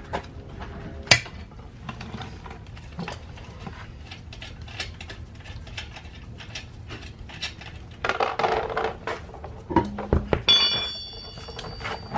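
Hand ratchet clicking in irregular runs as 19 mm lug nuts are worked loose and spun off a car wheel. Two sharp cracks open it, there is a scraping clatter of metal about eight seconds in, and about ten seconds in comes a heavy clunk followed by a ringing metallic clang that dies away.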